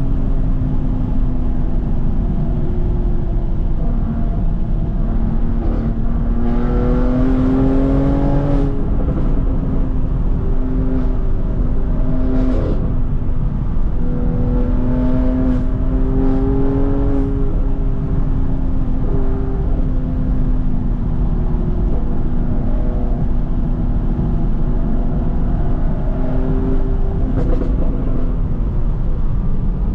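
BMW F80 M3's twin-turbo inline-six through a straight-piped M Performance exhaust with secondary cat delete, heard from inside the cabin while driving: a steady, loud engine and exhaust note with the revs climbing twice, about seven and fifteen seconds in. A few short sharp cracks come at scattered points.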